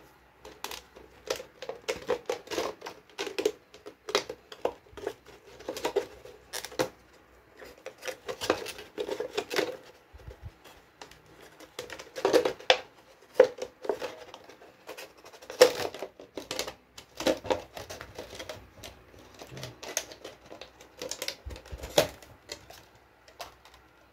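Thin clear plastic bottle crackling and clicking irregularly as hands squeeze and flex it and trim off its protruding bits with a scalpel.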